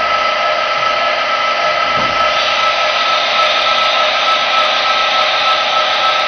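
CNC vertical milling machine's spindle turning a face mill at speed while flood coolant sprays, a steady high whine over a hiss.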